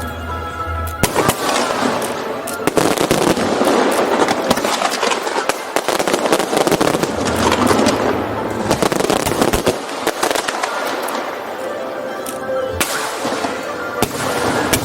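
Fireworks show: a dense run of sharp bangs and crackling from about a second in, thinning out after about ten seconds to a few separate bangs, with music playing underneath.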